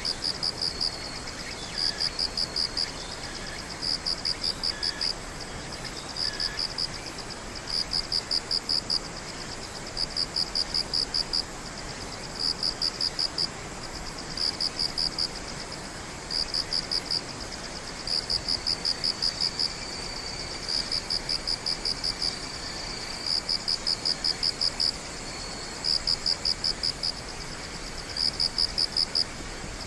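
Night insects calling: one high-pitched caller repeats a trill of rapid pulses, each trill about a second long, every one to two seconds, over a faint steady insect drone and background hiss.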